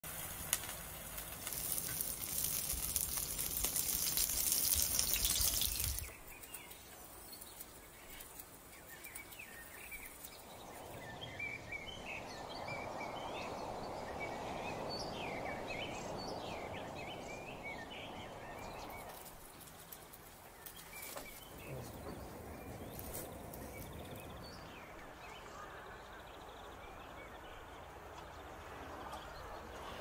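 Batter sizzling as it is poured onto a hot, large black frying pan for the first six seconds, the loudest sound. After that, birds chirp many times, over a steady rushing noise in the middle.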